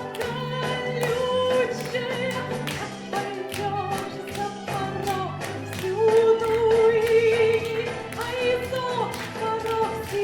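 Russian folk-style song sung with instrumental accompaniment keeping a steady beat; the voice holds one long note with vibrato about six seconds in.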